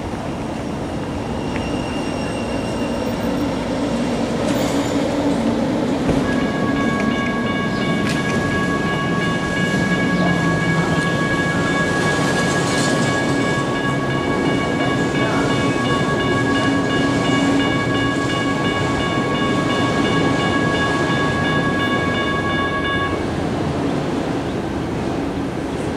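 General Signals Type 1 electronic crossing bell ringing steadily at a light rail grade crossing. It starts about six seconds in and stops a few seconds before the end, when the gates reach horizontal. A low steady rumble runs underneath.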